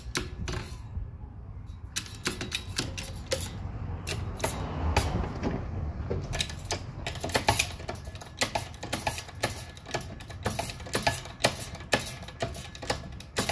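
Hydraulic shop press forcing a steel sleeve down on a new suspension bushing in a control arm. It gives a rapid, irregular run of sharp metallic clicks and ticks that come thicker after about six seconds, over a low steady hum.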